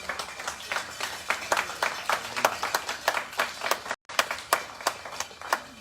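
A few people clapping unevenly, several claps a second, with a brief cut in the sound about four seconds in.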